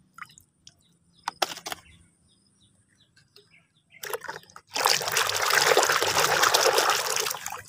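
Water trickling as a muddy plastic toy is rinsed clean: a few drips and small knocks, then a steady pour for about three seconds starting a little past the middle, which stops sharply.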